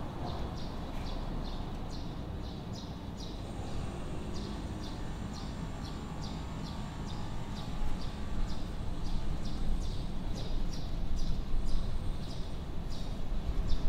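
Residential street ambience: a bird chirping over and over, about two short chirps a second, over a steady low rumble of distant traffic that grows louder about halfway through.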